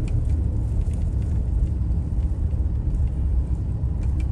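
Road noise and engine rumble heard inside a moving car, a steady low rumble with a few faint clicks.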